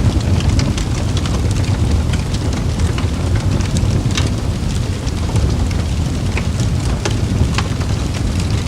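Wood campfire crackling, with many sharp, irregular pops and snaps over a steady low rumble of the burning fire.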